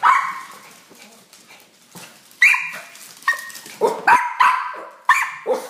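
Small dogs barking excitedly for a treat: one sharp bark, a lull of about two seconds, then a quick string of high barks.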